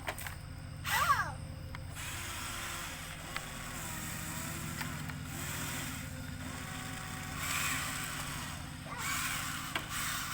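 A machine's engine running steadily, with a fainter whine that steps up and down in pitch. A short gliding call comes about a second in.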